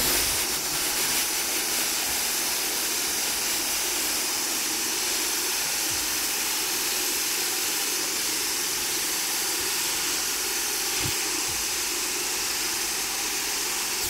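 Hot air rework station blowing a steady rush of hot air from its nozzle onto the underside of a circuit board, reflowing solder paste to seat a new through-hole HDMI port.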